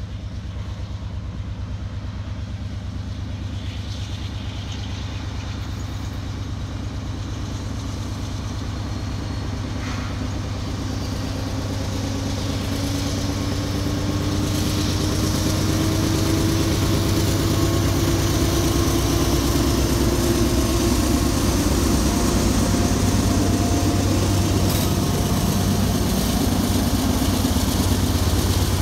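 Diesel locomotives pulling a loaded ballast train away from a stop under heavy throttle, their engines running with a deep steady drone. The drone grows louder as they approach and pass, and the engine note rises in pitch as they throttle up.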